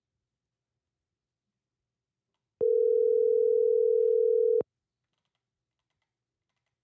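Telephone ringback tone: one steady two-second ring about two and a half seconds in. The line at the other end of the call is ringing and has not yet been answered.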